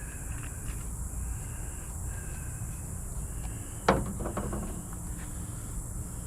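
A single sharp knock about four seconds in, followed by a few lighter clicks, over a steady low background hum.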